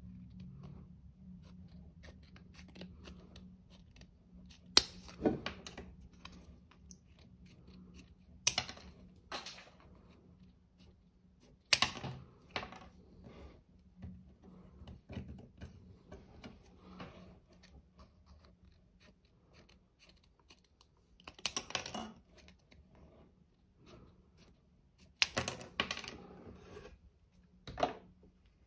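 Scissors cutting a plastic chip bank card into pieces: a sharp snip every few seconds, several in all, with lighter clicks and scrapes in between.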